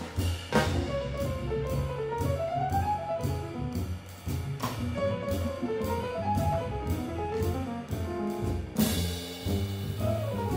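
Live jazz played by a quartet of trumpet, piano, double bass and drum kit. A melodic line rises and falls over low bass notes, with evenly spaced cymbal strokes, and a cymbal crash about nine seconds in.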